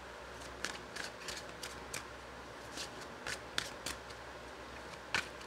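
A deck of tarot cards being shuffled hand over hand, with cards sliding and flicking against each other in short, irregular strokes a few times a second.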